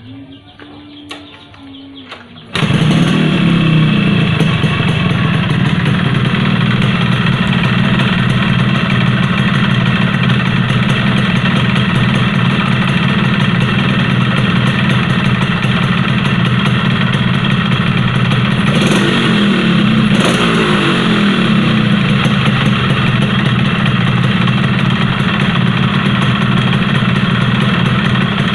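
Yamaha RX-King two-stroke single-cylinder motorcycle engine starts about two and a half seconds in and runs steadily, with two brief throttle blips a little past the middle. It runs with a rough rattle that the owner takes for a loose, worn piston in the cylinder (piston slap).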